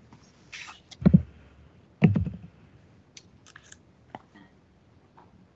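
Two dull knocks about a second apart, then a few faint clicks, picked up over a video-conference line: handling noise on a microphone or table during a pause in the call.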